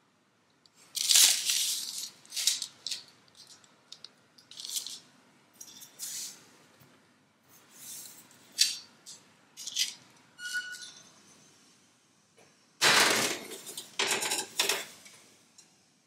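Metal spatula spreading stiff meringue on parchment paper over a metal baking sheet: a series of short scraping, squelching strokes, one or two with a brief squeak, and a louder run of scrapes and paper rustling near the end.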